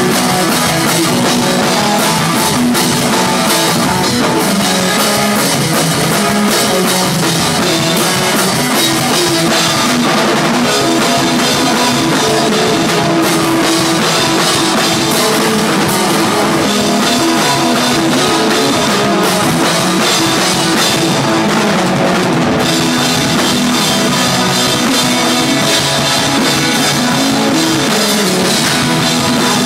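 Loud rock band playing: a drum kit with steady cymbal hits driving the beat, alongside guitar.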